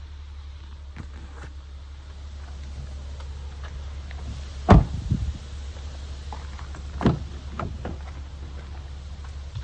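Pickup truck door or body panel being shut: a loud thud about five seconds in, with a few quick rattles after it, and a smaller thud about two seconds later, over a steady low hum.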